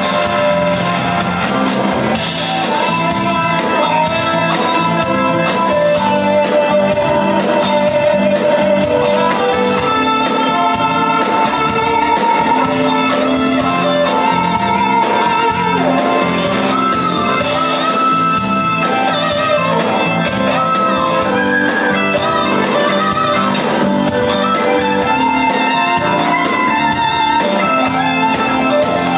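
Blues-rock band playing live: an instrumental passage led by electric guitar with bending notes, over organ and drums.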